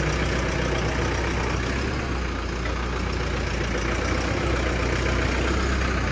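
Diesel engine of heavy farm machinery running steadily at a constant speed, a low, even hum under a dense mechanical noise.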